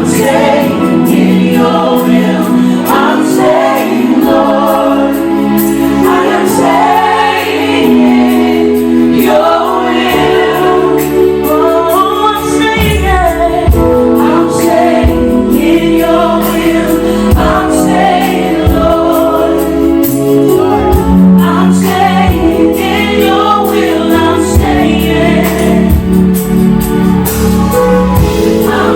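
Live gospel choir singing with instrumental accompaniment: held chords under shifting vocal lines, with a low beat joining in about halfway through.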